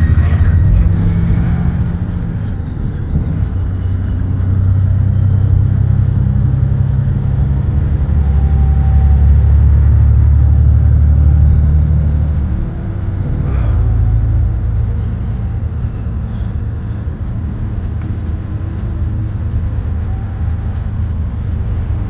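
Bus engine and road rumble heard while riding: a strong, steady low drone that drops and changes character about halfway through.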